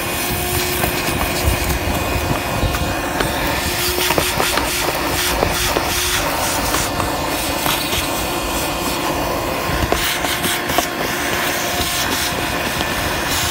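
DeWalt 20-volt cordless vacuum running steadily at full speed, a constant whine over a rushing hiss, with scattered clicks and rattles as leaves and grit from a windshield cowl drain are sucked up the hose.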